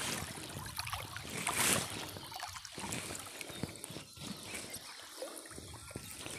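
Water sloshing and trickling in a shallow stream, with scattered small knocks and a brief louder rush about a second and a half in.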